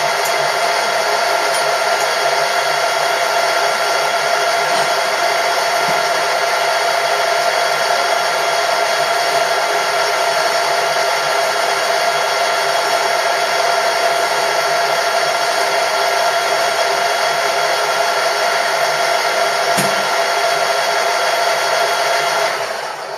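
Metalworking machine tool running steadily with a whine, then winding down and stopping near the end.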